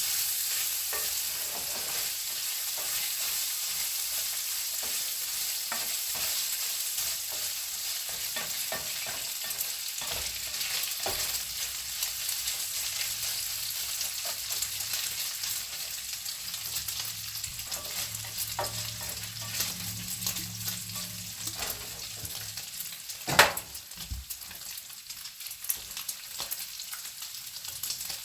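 Bacon frying in a pan: a steady hiss of hot grease with scattered small pops, and one sharp knock near the end.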